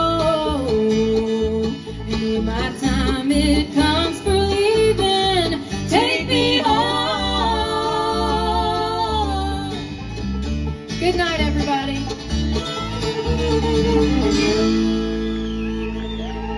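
Bluegrass band of banjo, guitar, mandolin, fiddle and bass playing an instrumental break, settling into a long held chord near the end.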